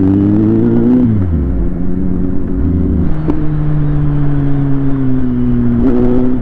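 Inline-four sport motorcycle engine under way: the revs climb, then drop sharply about a second in as the throttle closes, then settle into a steady cruise whose pitch slowly falls.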